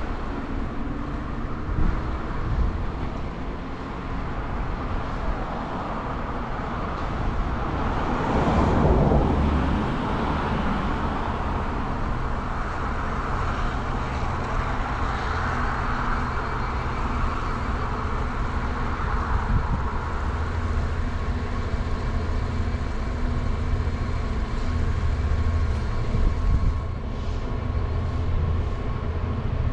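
Diesel freight train running with a steady low engine drone and a broad rushing noise, which swells briefly about eight to ten seconds in.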